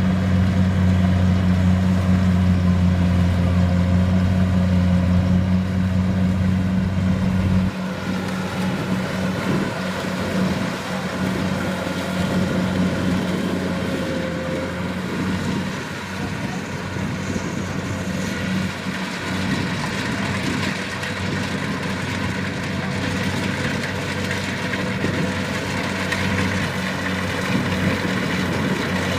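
Kubota DC-70 Plus combine harvester's diesel engine running with a steady low drone. About eight seconds in, the deepest hum cuts off abruptly, leaving a slightly quieter, steady machine drone.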